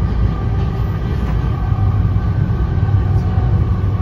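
Cabin noise inside an NJ Transit Comet passenger coach rolling along the rails: a steady low rumble of wheels and running gear, with a few faint high tones over it.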